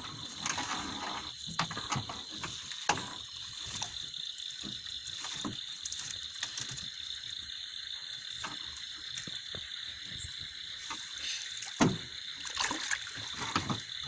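Steady high-pitched night chorus of frogs and insects. Over it come scattered knocks and rustles as a nylon cast net is handled against a wooden boat, with one louder knock near the end.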